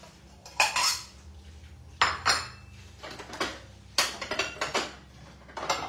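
Dishes and cutlery clinking and knocking together in a short run of separate strikes, a second or two apart, as food is dished out.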